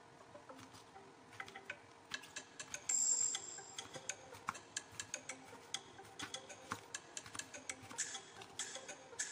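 Kitchen knife slicing through bitter melon and tapping the wooden cutting board with each stroke, a steady run of small clicks about two to three a second. A brief hiss about three seconds in is the loudest moment.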